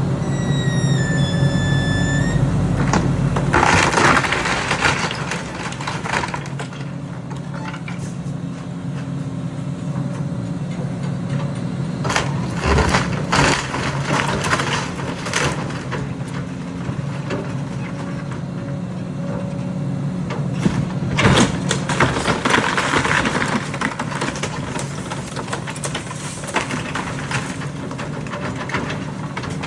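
Heavy engine of construction machinery running steadily, with repeated bursts of crunching and cracking, as of material being broken or dumped. A brief high squeal sounds near the start.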